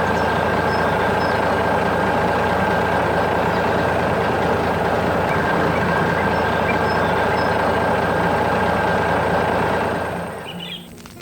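A heavy vehicle engine running steadily, with a constant whine over the rumble, fading out near the end.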